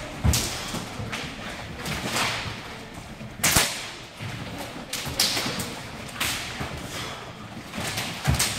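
Rubber resistance bands swishing and snapping as several judoka yank them hard and fast through repeated throw entries, a sharp crack every second or so, the loudest about three and a half seconds in. Sneakers thud on the wooden floor a few times.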